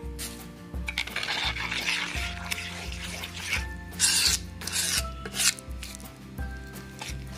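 Steel spoon stirring and scraping gram flour into spiced yogurt in a bowl: irregular rasping strokes, loudest past the middle, as the dry besan is worked into the batter. Background music with a steady low beat runs underneath.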